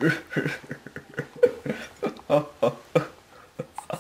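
A person's voice in short, broken sounds with no clear words.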